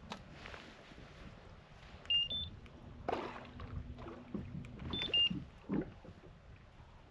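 Electronics aboard a fishing kayak beeping: a short rising two-note beep about two seconds in and a falling two-note beep about five seconds in, with a low steady hum between them. Knocks and rustling around them.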